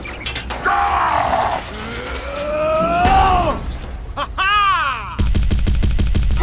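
Dubbed cartoon-style sound effects: straining, groaning voice-like sounds whose pitch rises and falls, then for about the last second a fast rattling series of pulses.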